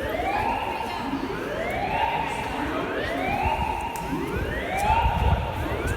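Building fire alarm sounding its evacuation tone: a rising whoop that repeats about once a second.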